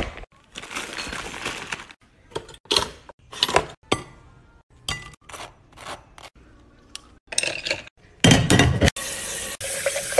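Quick succession of short kitchen sounds: clinks and scrapes of glass and dishware, cut off abruptly one after another. Near the end, a kitchen tap runs loudly into a glass in the sink.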